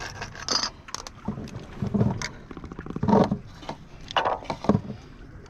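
Sea water sloshing and slapping against the breakwater rocks, in several loud surges over a steady wash.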